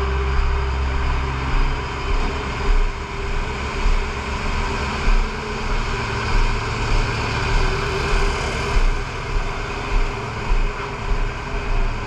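Fire truck engines running steadily, a continuous mechanical hum under a wash of noise. Regular low thumps come about once a second from about two seconds in.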